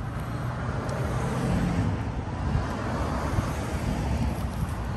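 Road traffic noise: cars passing steadily, with a low engine hum.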